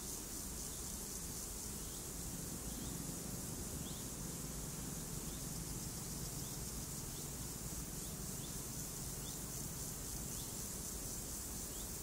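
Steady, even rush of a waterfall, with a short high chirp repeating roughly once a second over it.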